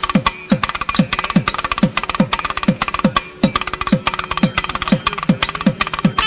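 Percussion music: a fast, steady drum rhythm of about two to three low strokes a second, each dropping in pitch, with lighter strokes between them over a faint steady drone.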